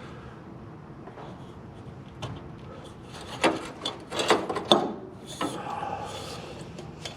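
Tools and metal parts being handled during work on a truck's front suspension: a quick run of sharp knocks and clatter about halfway through, one more knock just after, over a low steady background.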